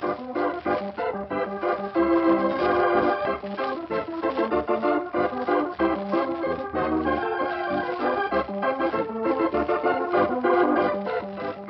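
Organ music from an old-time radio drama: a passage of quick-moving chords and notes, beginning to fade near the end.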